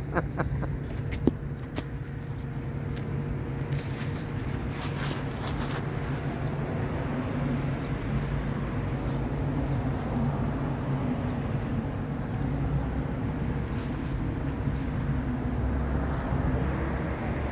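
Steady low rumble of motor vehicles, with a few sharp clicks in the first couple of seconds.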